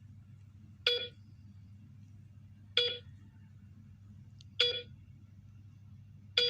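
Hospital heart monitor beeping slowly, four short beeps about two seconds apart over a faint low steady hum.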